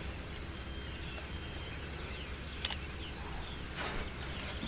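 Faint bird chirps and whistles over a steady low hum, with a sharp click a little past halfway and a falling call near the end.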